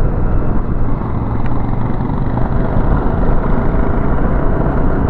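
Motorcycle engine running steadily while riding, under heavy wind noise on the microphone.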